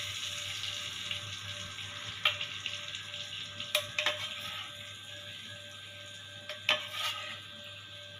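Hot ghee tempering with tomato pieces, sizzling and fading away as it is spooned and poured from a small steel pan onto cooked khichdi. A metal spoon clinks against the pan several times.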